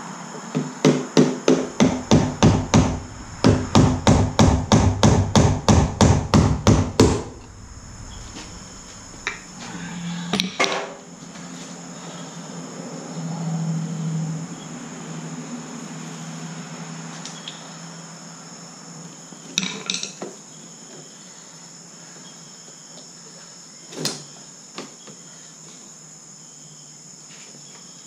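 Hammer tapping a screwdriver against the fuel pump lock ring on a fuel tank, driving the ring round to lock the new pump in place: two quick runs of about three strikes a second with a short break between them, then a few single taps later on.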